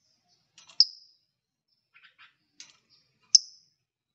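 Garden scissors snipping kenikir stems: two sharp snips about two and a half seconds apart, each with a brief metallic ring, with faint crackle and rustle of leaves and stems between them.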